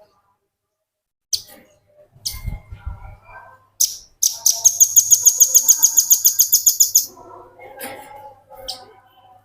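Velvet-fronted nuthatch calling: a few short sharp notes, then a loud, rapid, high trill of about ten notes a second lasting nearly three seconds, followed by softer chattering. A few low thumps come about two seconds in.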